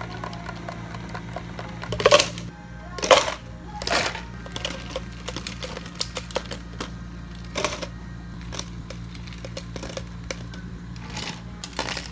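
Ice cubes tipped from a metal ice scoop into clear plastic cups, a rattling crash about six times, the loudest in the first few seconds, over a steady low hum.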